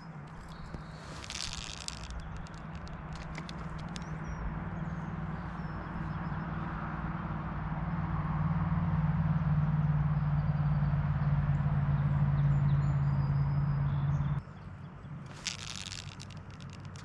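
A steady low engine hum grows gradually louder over a background of rushing water, then cuts off sharply about three seconds before the end.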